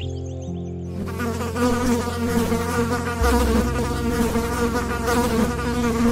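A flying insect buzzing close by, starting about a second in, its pitch wavering, over steady held background notes.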